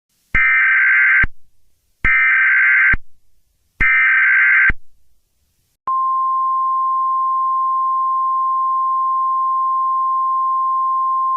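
Emergency Alert System header: three screeching digital data bursts of about a second each, followed by a long, steady, single-pitch alert tone near 1050 Hz. Together they announce the start of an alert message.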